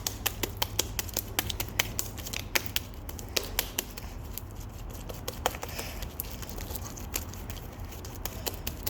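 Homemade slime being kneaded and stretched by hand, giving quick wet clicks and pops, several a second at first and fewer later, over a low steady hum.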